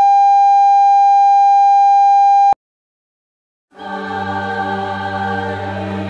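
Emergency-alert-style tone: one loud, steady single-pitch beep held for about two and a half seconds, then cut off sharply. After a second of silence, slow sustained music with a low drone fades in.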